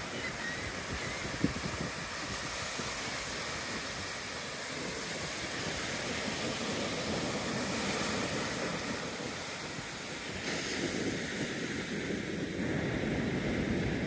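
Ocean surf breaking and washing up a sandy beach: a steady rushing that swells and eases as the waves come in. There is a single sharp tick about a second and a half in.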